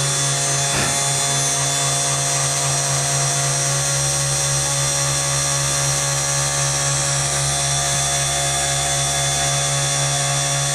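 Hobby CNC router spindle running at steady speed, its engraving bit milling traces into copper-clad textolite circuit board: a constant whine made of many steady tones over a deep hum. There is one brief click about a second in.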